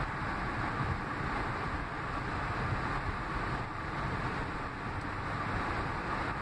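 Steady road and tyre noise with wind, heard inside a car cabin at highway speed.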